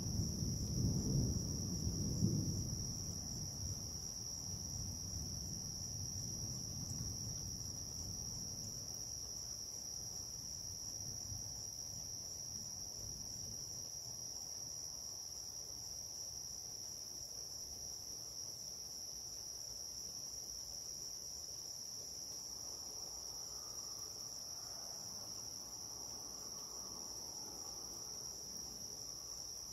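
Thunder rumbling and fading away over the first several seconds, over a steady high-pitched chorus of crickets trilling throughout.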